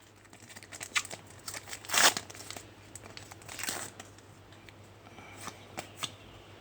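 Trading card pack wrapper crinkling and cards being handled, in short scattered rustles and clicks, the loudest about two seconds in.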